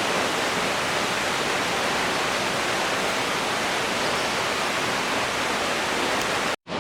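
Waterfall rushing steadily, a dense even roar of falling water with a brief break near the end.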